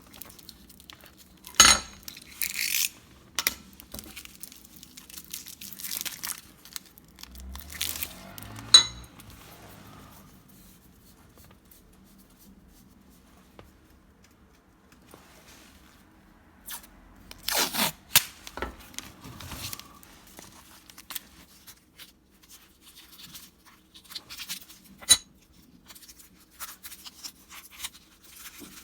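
Workshop handling noises, irregular sharp metal clicks and clinks with rustling and scraping between them. The loudest clicks come about two seconds in, about nine seconds in, in a cluster around eighteen seconds and once near twenty-five seconds, with a quieter stretch in the middle.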